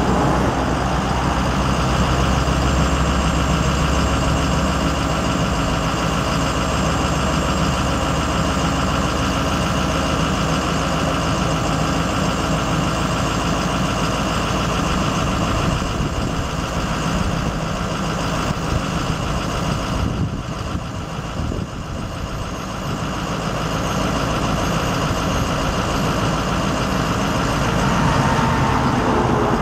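International VT365 6.0L V8 turbo diesel of a Ford F650 service truck running steadily while its crane boom is raised, the low rumble easing about five seconds in.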